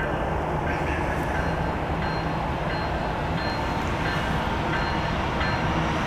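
Canadian Pacific diesel freight locomotives running steadily as they lead an intermodal train past, a continuous low engine drone.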